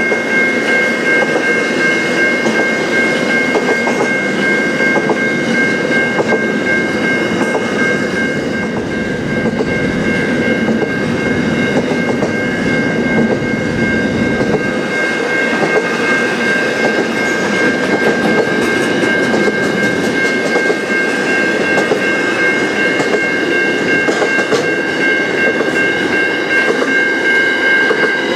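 A train rolling past on the rails, with dense rumble and faint wheel clicks over the track. A steady high-pitched whine is held throughout.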